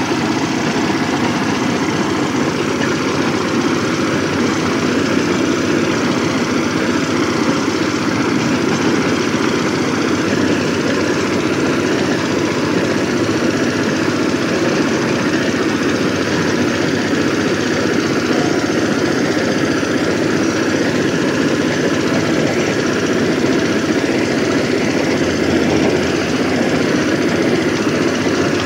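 VST Shakti 130 DI power tiller's single-cylinder diesel engine running steadily while the machine tills soil, with a rapid, even chugging that keeps the same pace throughout.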